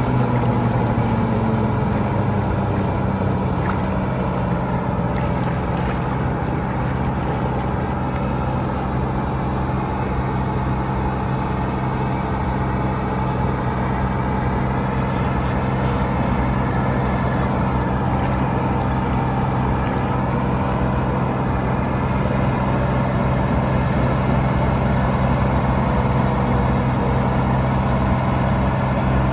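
Heavy farm machine's diesel engine running steadily at a constant speed.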